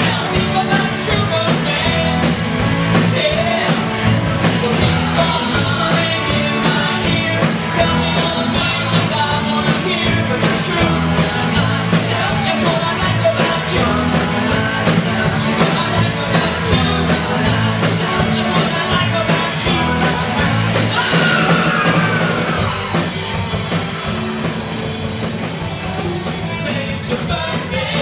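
Live rock band playing a cover song with vocals over electric guitar, bass, keyboards and drums, keeping a steady beat.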